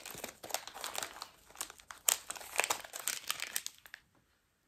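Clear plastic packaging of a wax melt crinkling and crackling as it is handled, in many quick irregular crackles that stop about four seconds in.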